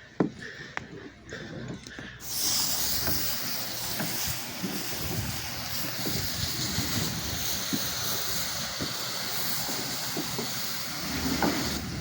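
Sodium hypochlorite cleaning solution hissing steadily out of a spray nozzle onto a dirty deck, starting about two seconds in after a few soft clicks. The chemical is being put down to dwell before surface cleaning.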